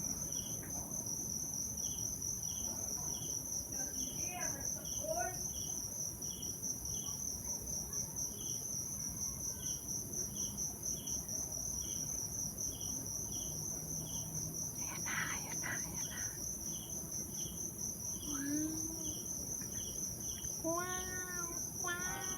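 Crickets and other insects calling: a steady high trill that pulses rapidly, with a separate short chirp repeating about twice a second. A few short, arching pitched calls from another animal come in, most of them in the second half.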